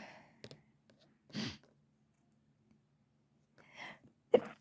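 A person sneezing: a wet sneeze trails off at the start, breaths come between, and a short, sharp sneeze comes near the end.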